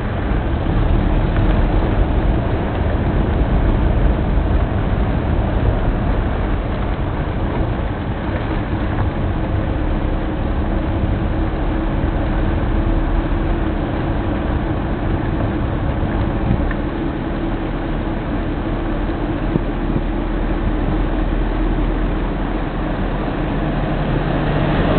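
Steady engine and road noise of a car being driven, heard from inside the vehicle, with a low hum running under it.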